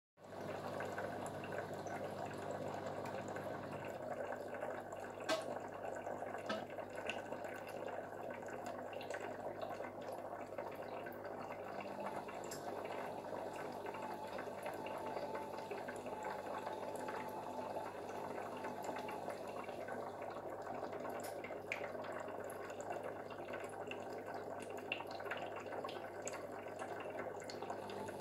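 Aquarium water bubbling and trickling steadily, with a low steady hum beneath and a few faint clicks.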